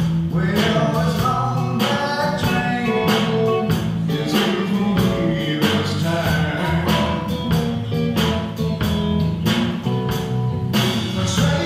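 Live rock band playing: electric guitars and bass guitar over a drum kit keeping a steady beat.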